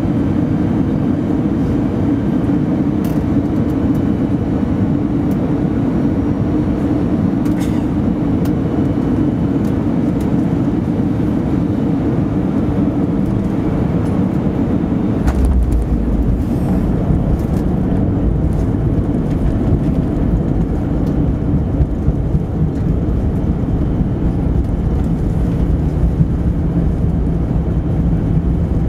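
Cabin noise of an Airbus A320 on final approach: a steady rush of engines and airflow. About halfway through, the main wheels touch down and a deep rumble from the tyres rolling on the runway sets in, with jolts, as the airliner rolls out.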